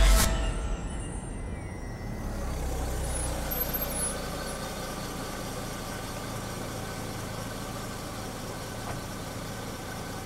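Background music ends abruptly at the start. Then a vehicle engine idles steadily under a low outdoor rumble.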